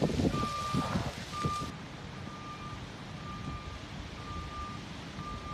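A truck's reversing alarm beeping steadily about once a second, each beep a single steady tone. Rough low rumbling noise runs under the first couple of seconds.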